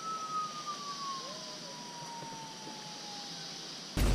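One long whistle falling slowly and evenly in pitch, like a cartoon falling-bomb whistle, over a steady high hiss of insects. It breaks off near the end into a sudden loud burst of noise.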